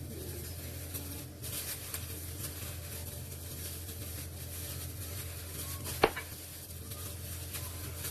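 Kitchen handling sounds while a salad is put together: soft rustling and scraping of food and utensils, with one sharp clink of kitchenware about six seconds in, over a steady low hum.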